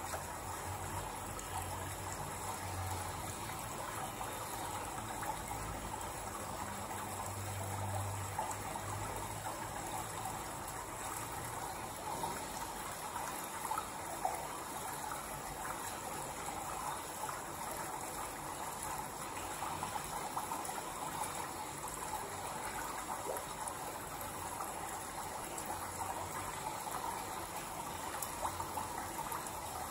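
Steady rushing noise of flowing water, even throughout with no distinct events.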